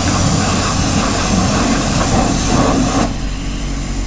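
High-pressure washer lance spraying a moped with a steady loud hiss that cuts off abruptly about three seconds in, over a steady low hum.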